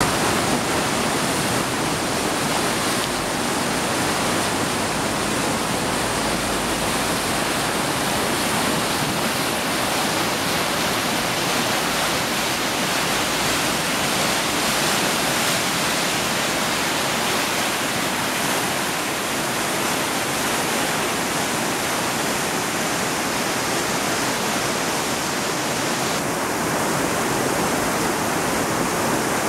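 Flood-swollen river rushing over a weir and churning below it: a steady, loud rush of white water.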